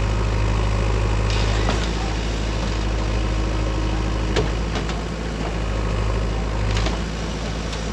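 Diesel engine of a JCB 3DX backhoe loader running steadily, with a few short knocks and clanks.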